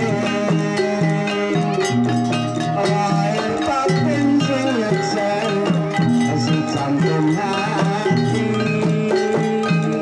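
Live amplified traditional Javanese music: a kendang barrel drum and ringing pitched percussion keep a steady repeating pattern, with a man's wavering vocal line sung over it through a microphone and PA.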